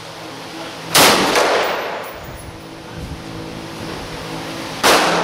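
Two rifle shots from a scoped Rock River Arms LAR-15 AR-15-type varmint rifle, about four seconds apart, each sharp crack trailing off in a short echo.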